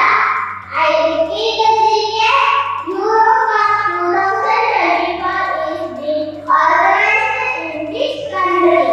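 A girl singing a song into a microphone, amplified, over a musical accompaniment with low held notes that change every second or so.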